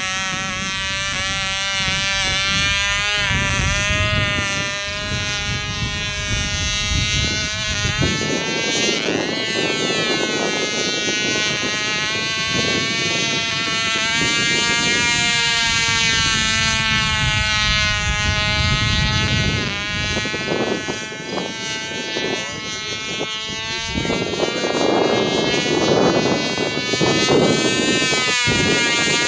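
Cox .049 glow engine of a small RC biplane in flight, a high buzzing whine whose pitch rises and falls as the plane flies past and turns. Wind buffets the microphone underneath.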